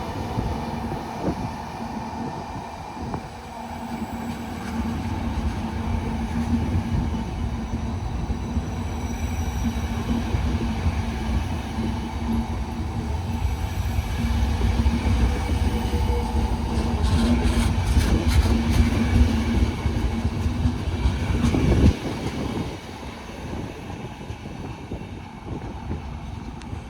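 A train passing through the station: a steady low rumble with a constant hum, growing louder, with a rapid run of wheel clicks over rail joints near the end. The rumble drops away suddenly a few seconds before the end as the train clears.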